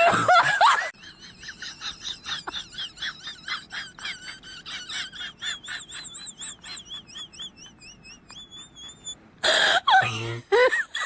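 A high, warbling whistle-like tone that wobbles up and down over quick rhythmic ticking at several strokes a second. It is framed by loud wailing vocal sounds at the start and again near the end.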